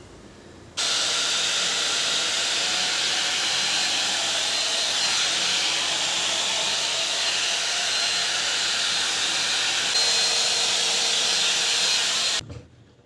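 Hair dryer running: a steady rush of air that switches on about a second in, changes slightly near ten seconds, and switches off abruptly near the end.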